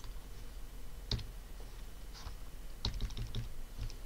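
Computer keyboard keys being tapped: a single click about a second in, then a quick run of several clicks around three seconds in, over a low steady hum.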